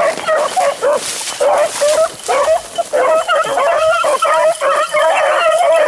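A pack of beagles baying while running a rabbit: many short, high bay notes overlapping one another, growing thicker from about three seconds in, the sound of hounds on the scent line.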